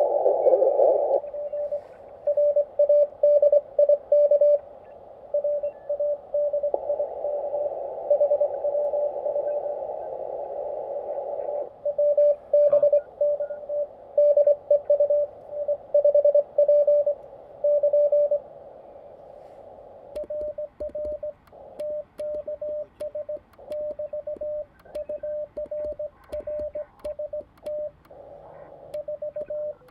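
Morse code (CW) from a Xiegu G90 ham transceiver: a keyed tone of about 600 Hz beeping in dots and dashes over band hiss through a narrow filter. About two-thirds in, the hiss drops away and a quieter, cleaner keyed tone goes on, with faint clicks.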